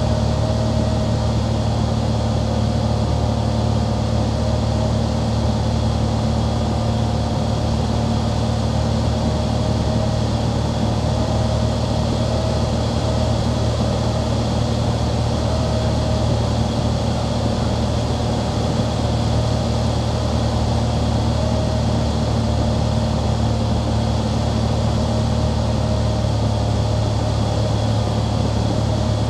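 Light single-engine propeller airplane's engine and propeller droning steadily in flight, with a constant rush of airflow noise behind it.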